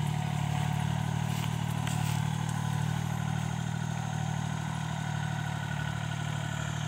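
L1-20 farm tractor's engine running steadily under working load while it drives a rear-mounted rotary grass slasher: a low, steady drone with a fast even throb.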